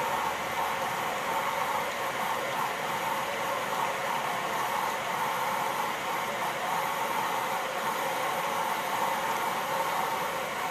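Sunburst P4C push-for-concentrate sanitizer dispenser running on its timed cycle: water running through it and the concentrated sanitizer pouring into the filled sink, a steady rushing hiss.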